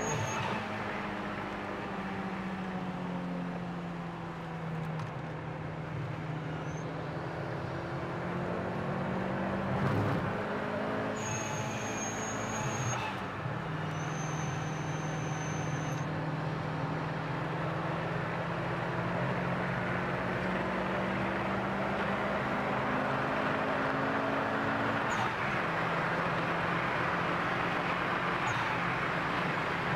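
Car engine running at speed, heard from inside the cabin, its note stepping in pitch a few times as it changes gear, over a steady hiss of tyres on a wet track that grows louder toward the end.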